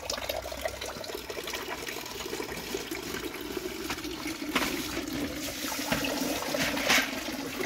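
A steady stream of water pouring from a pipe outlet into a temporary fish pool, splashing on the surface, with two sharper splashes about four and a half and seven seconds in.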